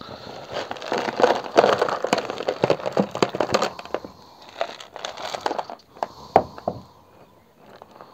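Thin plastic plant pot being squeezed and tipped out, crackling and crinkling as the soil inside comes loose. From about four seconds in the sound thins to scattered clicks and rustles of soil, with one sharper click about six seconds in.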